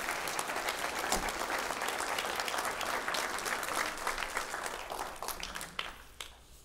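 A congregation applauding in welcome, a dense patter of many hands clapping that dies away near the end.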